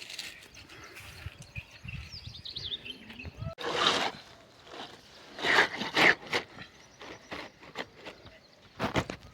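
Outdoor ambience with a bird chirping a short run of falling notes, then several brief rushing, scraping bursts and scattered clicks.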